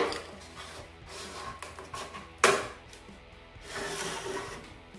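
Plastic radio cabinet being handled and unscrewed on a wooden bench. There are two sharp knocks, one at the start and one about two and a half seconds in, with softer scraping and rubbing between them.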